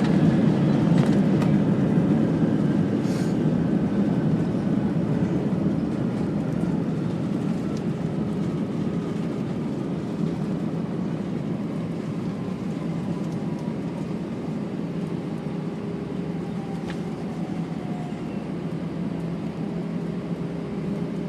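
Airliner cabin noise on the landing rollout: a loud, steady rumble from the jet engines and the runway that slowly fades, with faint whining tones gliding downward as the aircraft slows.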